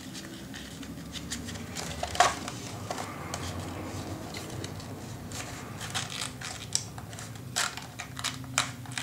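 Paper rustling and scraping as a card is pushed into a tight paper pocket, with scattered light clicks and taps, one sharper tap about two seconds in and a run of them near the end.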